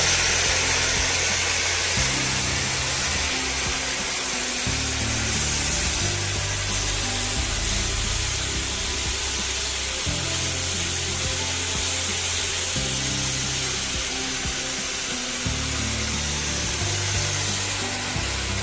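Background music with a bass line that changes note every second or two, over a steady sizzling hiss of thin-sliced pork belly frying in a pan.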